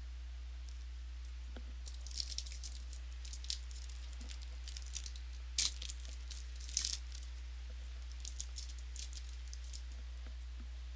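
Crinkling and crackling of trading cards and card-pack wrappers being handled, a run of short crisp crackles and clicks, sharpest a little past the middle, over a steady low electrical hum.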